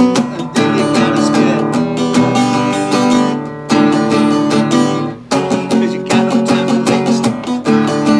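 Acoustic guitar strummed in quick repeated strokes, moving between chords, with two short breaks about three and a half and five seconds in.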